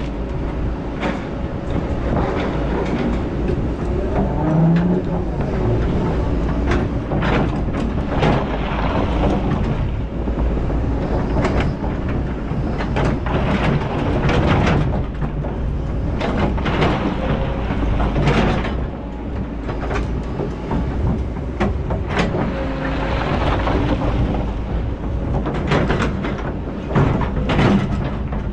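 Kobelco hydraulic excavator's diesel engine running steadily under load, with irregular knocks and clatter as its bucket works among boulders and rock strikes rock.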